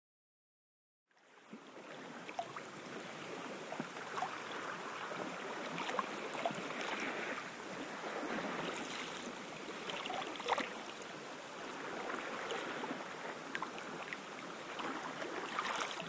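Digital silence for about the first second and a half. Then the steady wash of gentle surf on a sandy beach, with faint scattered clicks.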